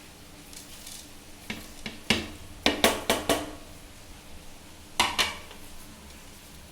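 Kitchenware clinking and knocking against a cooking pan as whole spices are tipped into the boiling water: a run of sharp clinks, most bunched together about two to three seconds in, and one more about five seconds in.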